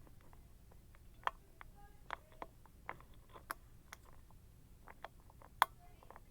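Hook pick and tension wrench working the pins of an Abus 55/40 four-pin padlock: small irregular clicks and light scrapes, the loudest click near the end.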